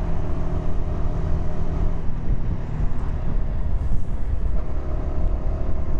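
Yamaha R125's single-cylinder 125 cc engine running on stock exhaust while riding, under heavy wind rumble. The steady engine tone fades about two seconds in and comes back near the end.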